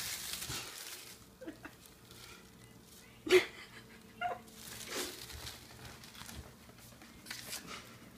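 Plastic bag crinkling as a pet rat scurries with the bag caught around its body, fading after the first second into scattered soft rustles. One short, sharp sound about three seconds in is the loudest thing.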